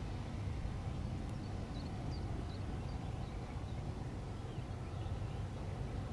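Steady low outdoor rumble, with a few faint, short high bird chirps between about one and three seconds in and again near five seconds.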